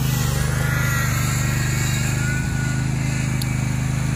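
Small gasoline engine of a homemade tracked vehicle running steadily at an even speed, with a fast, regular firing pulse.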